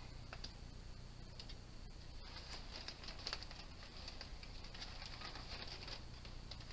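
Faint handling noise: light clicks, ticks and rustles of a plastic zip tie being threaded through the wire mesh of a collapsible fish basket and around a foam pool noodle, with the mesh rattling softly.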